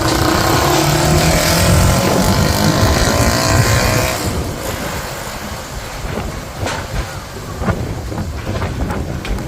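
Strong gusting wind for about four seconds, loud and dense, with a pitched whine rising through it. It then eases to a lower rush, broken by scattered knocks and clatters.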